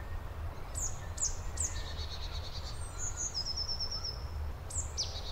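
Songbirds chirping: short high calls, each a quick downward sweep followed by a rapid trill, repeat several times, with a higher trill near the middle. A steady low rumble of background noise runs underneath.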